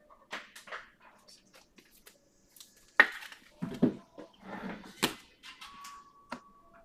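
Trading cards being handled on a table: a run of sharp taps and clicks with short rustles, the two loudest knocks about three and five seconds in.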